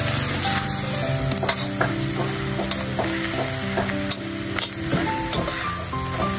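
Stir-frying in a wok: a metal spatula scraping and clicking against the pan while the egg mixture sizzles. Soft background music of held notes plays underneath.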